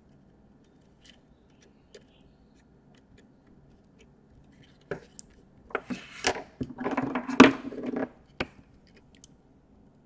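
Scissors snipping and hands working insulating tape on a laptop motherboard: a few faint clicks, then a stretch of rustling with knocks about six to eight seconds in, ending in one sharp click.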